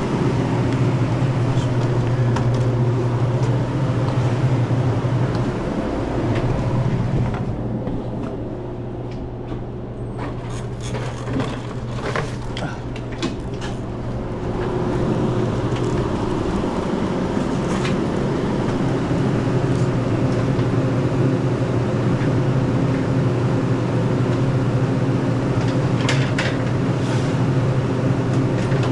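Steady low hum of a walk-in cooler's refrigeration fan units. It drops away for several seconds in the middle, when a run of knocks and clatters from handled drink cases is heard, then comes back.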